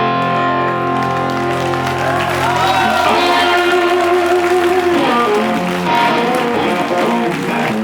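Live blues band playing the closing bars of a song with no singing, guitar to the fore: long held notes, with wavering, bending notes around the middle.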